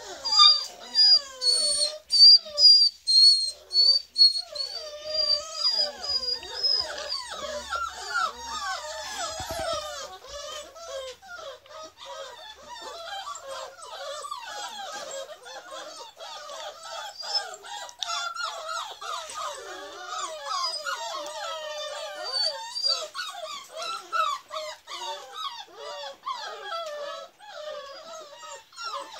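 A litter of beagle puppies whining and yelping, many high wavering cries overlapping, louder over the first several seconds.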